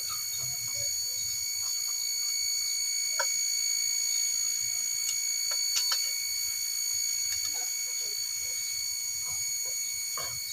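A few light metallic clinks and taps as a timing chain and sprocket are handled and fitted at the front of an engine. Under them runs a steady high-pitched whine.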